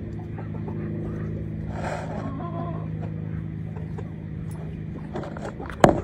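Steady low hum of a running motor, with a sharp knock near the end.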